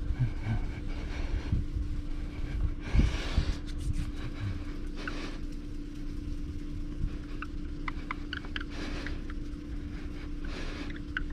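Foam sponge rubbing liquid compound over a scratch on a car's door sill: a few soft swishes with faint small ticks, over a steady low hum and rumble.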